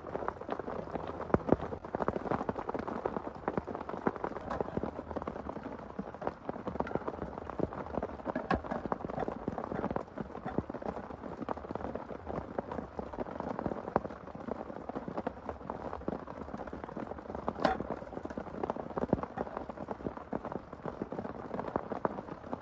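Heavy rain falling, with a dense, continuous spray of individual drop hits.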